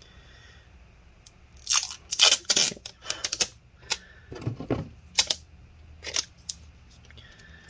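Adhesive tape being pulled off a roll and torn into pieces: a cluster of loud ripping crackles about two seconds in, then scattered softer rustles and clicks.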